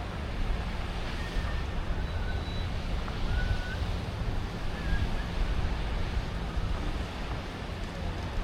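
City street ambience: a steady wash of traffic noise with a deep rumble, and a few faint, short high squeaks between about one and five seconds in.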